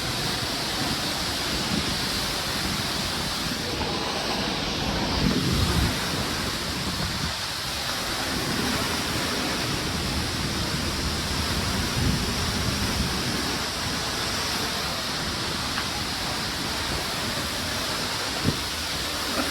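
Waterfall close by, a steady loud rush of falling water with no letup.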